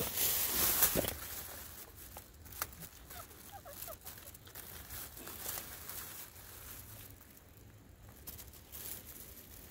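Rustling of dry leaf litter and crackling of rotten wood as hands reach under a fallen log and break off pieces of chicken of the woods fungus; loudest in the first second, then quieter scattered clicks and rustles.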